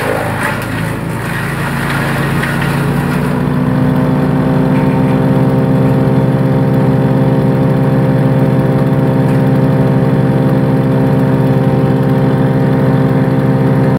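Hansa C16 wood chipper's engine running, chewing through the last of the bamboo with a coarse crunching for the first three seconds or so. The engine then picks up speed and runs steadily with no load.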